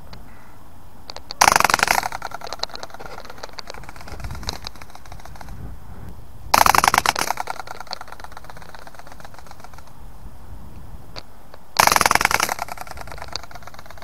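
Rubber-band-powered flying-dinosaur toy ornithopter clattering three times as the wound rubber band is released: a fast mechanical rattle of the flapping wings that quickly slows to a few ticks as the band unwinds.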